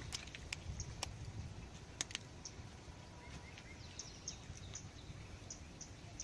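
Faint outdoor background with a few sharp clicks in the first two seconds, then short high bird chirps repeating about twice a second.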